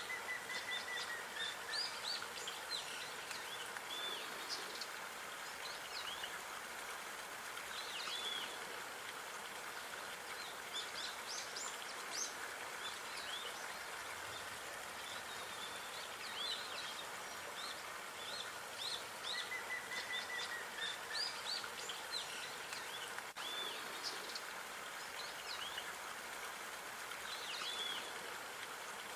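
Small songbirds chirping in short, quick notes, with a longer whistled call near the start and again about two-thirds of the way through, over a steady background hiss.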